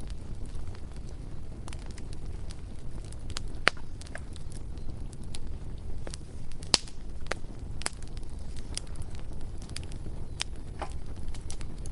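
Bonfire burning with irregular sharp crackles and pops over a steady low rumble. Two pops, about four seconds in and near the middle, stand out as the loudest.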